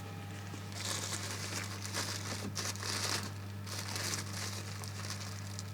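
Packaging rustling in irregular bursts as a component is handled and unwrapped by hand, over a low steady hum.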